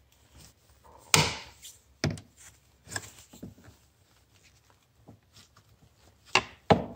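Toothed metal one-time-use retaining clips being pried off one by one, each letting go with a sharp click. There are several irregularly spaced clicks, the loudest about a second in and a pair near the end.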